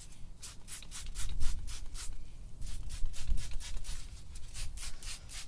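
Squeeze bottle of all-purpose cleaner squirting in a string of short spurts onto the golf cart's plastic battery tray. Uneven wind rumble on the microphone underneath.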